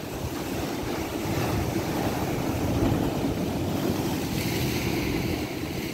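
Sea surf breaking and washing over shore rocks, with wind buffeting the microphone; a wave crashes into hissing spray about four and a half seconds in.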